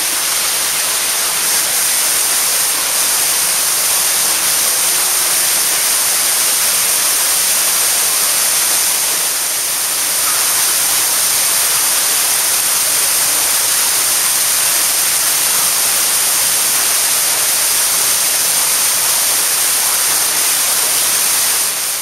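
Small waterfall inside a mine tunnel: thin streams of water falling down a rock face and splashing, a steady hiss with no pauses.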